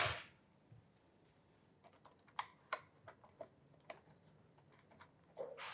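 Scattered light metallic clicks of stainless-steel screws being set by hand into a motorcycle tank ring, mostly between about two and four seconds in. A short hiss at the very start.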